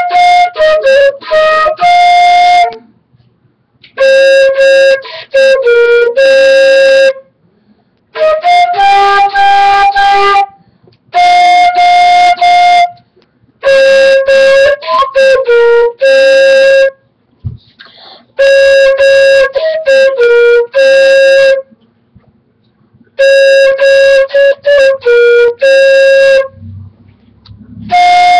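Loud solo concert flute played by a young student: about eight short phrases of a few notes each, mostly on the same handful of pitches, with a pause of about a second between phrases.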